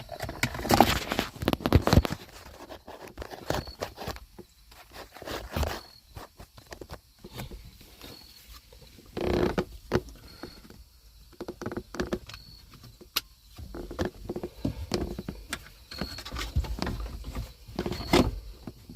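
Hands working in a car dashboard: irregular clicks, knocks and rustling of plastic trim and wiring harness as the connectors of a replacement center display screen are plugged in and the screen is pushed into place.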